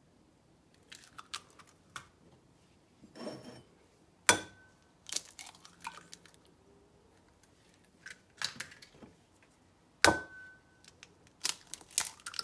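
Raw eggs being cracked against a glass bowl: two sharp cracks about six seconds apart, each leaving a brief glassy ring, with smaller crackles and clicks of shell being broken open and handled between them.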